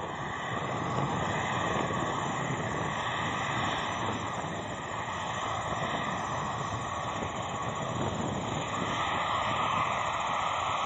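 Airliner jet engines running as a plane passes: a steady rushing noise with a faint whine, building over the first second and then holding.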